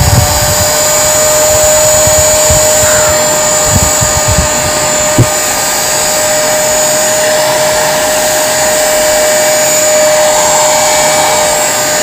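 Ambrane 1200 W hair dryer running on its first, lower-speed setting, blowing hot air: a steady rush of air over a constant motor whine. A few low thuds come in the first few seconds, and a single click about five seconds in.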